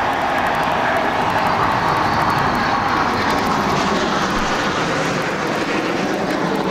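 Military jets flying low overhead in formation: a loud, steady jet roar.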